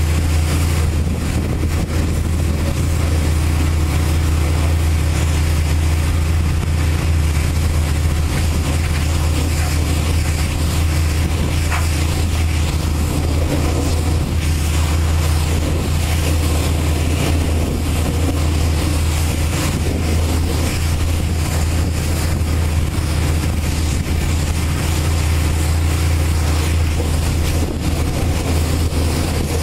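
Pressure washer spraying a truck: a steady hiss of high-pressure water over a constant low machine drone.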